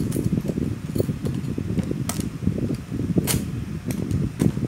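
Sharp metallic clicks, two clear ones about a second apart near the middle, as a small transformer's steel core and mounting bracket are handled and a screwdriver is put to its screws. A steady low fan rumble runs underneath.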